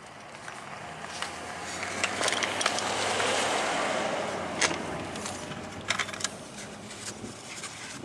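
Road noise of a passing vehicle, swelling and fading over a few seconds, with scattered light clicks.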